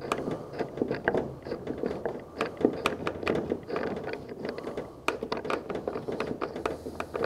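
Irregular light clicks and knocks of a Thule Xsporter Pro ladder-rack clamp being fitted and hand-tightened onto a pickup's bed rail.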